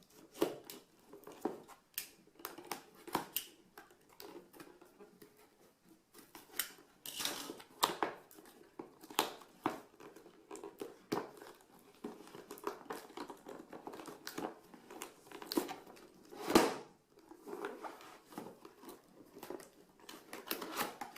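A compact cardboard retail box being opened and its contents handled: irregular crinkling, rustling and tearing of packaging with many small clicks and knocks, the loudest knock about 16 seconds in.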